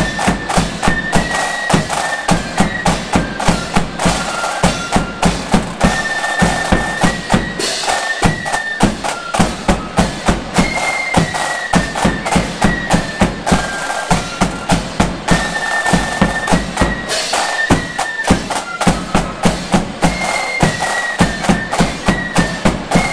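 A marching flute band playing a march: a high flute melody over side drums, crash cymbals and a bass drum beating a steady rhythm, about two strong beats a second.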